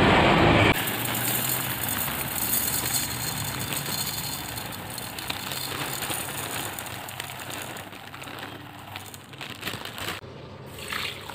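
Dry glutinous rice grains pouring into a bowl: a steady pattering hiss of falling grains that slowly grows fainter. It starts right after a louder, denser sound that cuts off under a second in.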